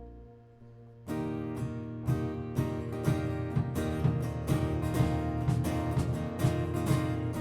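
Worship band playing between songs: a held chord fades out, then about a second in acoustic guitar strumming starts with a steady rhythm as the intro of the next song.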